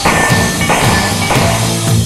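Rock music with drums.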